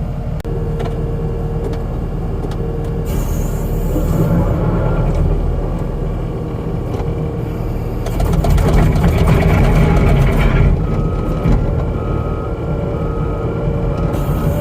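Skid steer engine running under load, revving up for a couple of seconds about halfway through. From about two-thirds of the way in, an electronic beeper sounds in a steady, even series of short beeps.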